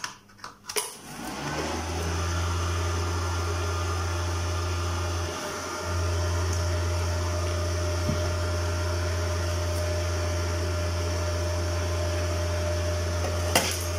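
MMA-200 inverter IGBT welder switched on about a second in, its cooling fan and electronics running with a steady hum. The hum dips briefly about five seconds in, and there is a single click near the end.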